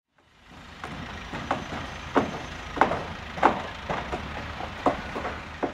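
Construction-site noise: a steady low rumble of heavy equipment with about eight sharp, irregularly spaced clanks and bangs. It fades in over the first second.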